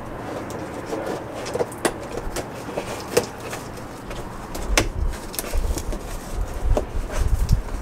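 A flat-packed metal garden table's packaging being handled and opened: scattered sharp clicks and knocks with rustling and rubbing.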